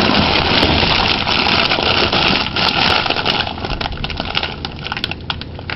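Plastic bags of frozen vegetables rustling and crinkling as they are handled in a packed freezer, with many sharp crackles that get thicker toward the end, over a steady low hum.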